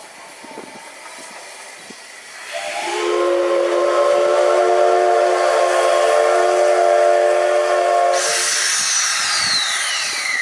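Steam whistle of the C62 steam locomotive C62 2 sounding one long chord of several steady tones, starting a couple of seconds in and lasting about five seconds. Near the end it changes to a loud hiss of steam with a single high tone falling steeply in pitch.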